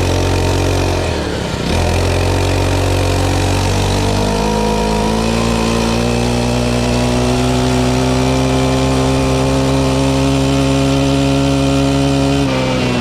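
Pocket bike's small engine running; its note dips briefly about a second in, then climbs over a couple of seconds to a higher steady speed, holds there, and falls back off near the end.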